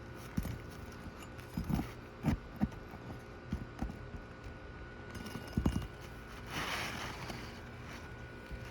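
Irregular dull knocks on an asphalt shingle roof, tool work loosening the nails of a damaged shingle, with a brief scrape about six and a half seconds in.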